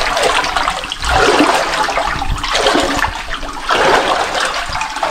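Water rushing and splashing along a narrow brick-lined underground channel, loud and close, swelling in uneven surges about once a second.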